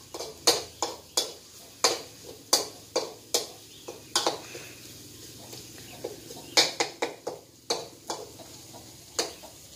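Metal spatula scraping and knocking against a metal wok while stirring: a run of sharp clacks, a pause of about two seconds around the middle, then another quick cluster of clacks and one more near the end.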